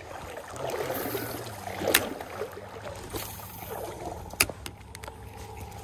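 Stream water moving and sloshing close to the microphone, with two sharp clicks about two seconds and four and a half seconds in.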